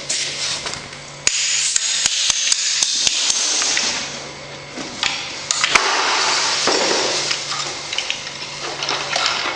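Sharp metallic taps and knocks, a quick run of them in the first few seconds, with rattling handling noise between, as tools work the bit off a magnetic drill's arbor.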